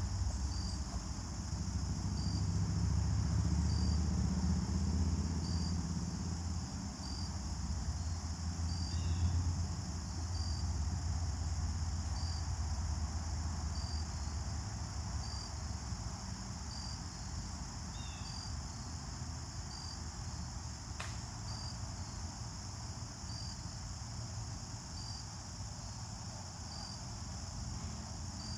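Crickets chirping steadily, a high drone with a soft pulse about once a second. A low rumble runs under it for the first ten seconds or so.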